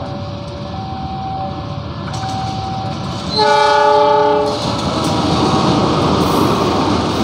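A level-crossing warning alarm repeats a two-note tone. About three and a half seconds in, a CC 201 diesel-electric locomotive gives one horn blast of a little over a second, a chord of several tones. Then comes the steady noise of the locomotive's engine and wheels as it passes close by.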